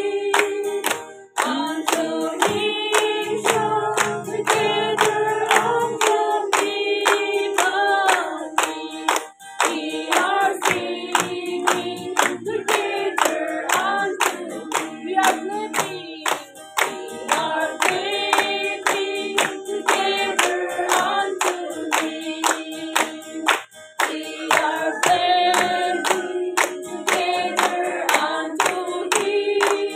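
A small group, mostly women's voices, singing a worship song together, with hands clapping steadily on the beat and an acoustic guitar accompanying.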